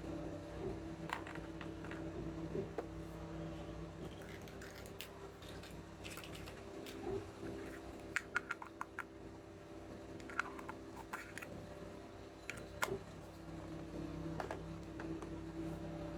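Small plastic toy pieces handled and set down, giving scattered light clicks and taps, with a quick run of sharper clicks about halfway through. A steady low hum runs underneath.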